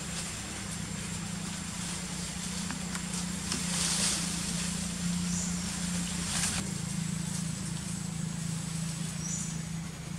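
Steady low motor hum under outdoor ambience, with a faint steady high whine; brief rustling swells about four seconds and six and a half seconds in.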